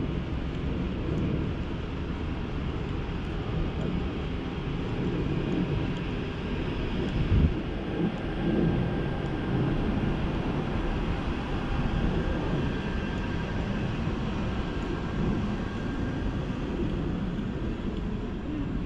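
Steady low outdoor rumble with no clear single source, its level wavering, and one brief thump about seven seconds in.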